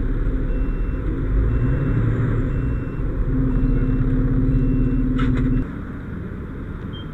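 Fire truck engine running, heard from inside its cab as it pulls up. The engine hum grows stronger about three seconds in and drops away suddenly about five and a half seconds in. A faint high beep repeats about once a second.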